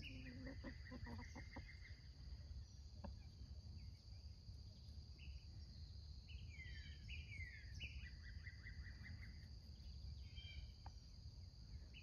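Faint outdoor ambience: a steady high drone of insects, with a wild songbird repeating a short phrase of falling notes that runs into a quick trill, heard several times.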